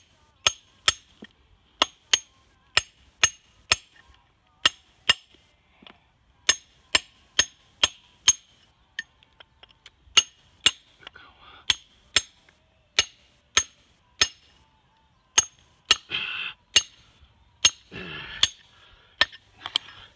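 Steel hammer striking a raw Japanese natural whetstone (su-ita rough stone), in sharp ringing clinks about two a second with a few short pauses. The stone is being dressed by splitting it along its weak seams, the ring of each strike telling where the bond is weak. Near the end there are two short rustling noises.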